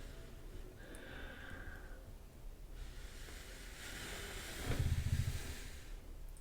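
Inaudible ASMR whispering close to the microphone: soft breathy hiss without clear words. A louder low puff of breath hits the microphone about five seconds in.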